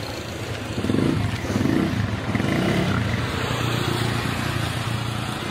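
Pigs grunting in short irregular bursts during the first few seconds, over a steady low engine hum.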